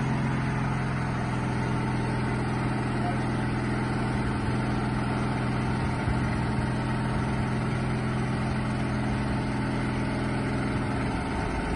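Compact spider crane's engine running steadily at idle.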